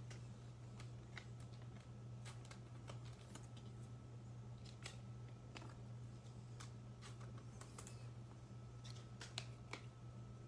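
Basketball trading cards being slid into soft plastic penny sleeves: faint, scattered plastic crinkles and ticks over a steady low hum.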